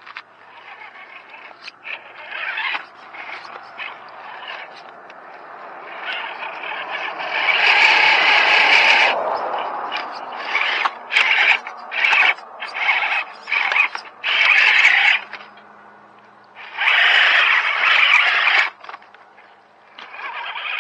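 Scale RC rock crawler's motor and drivetrain whirring in stop-start bursts of throttle as it crawls over rocks. There are two longer pulls, one in the middle and one near the end, with a run of short blips between them.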